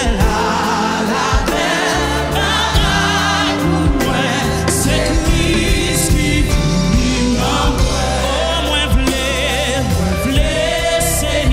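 Live gospel worship song: a woman sings lead in Haitian Creole, with vibrato, over a band with drum kit.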